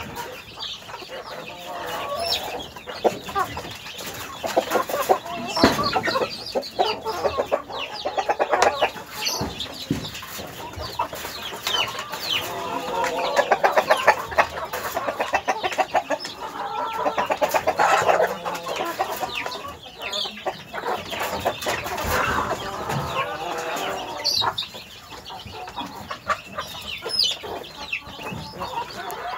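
A small flock of chickens clucking and calling close by, with frequent short clicks and scuffs among the calls. The clucking comes in louder, rapid bouts around the middle.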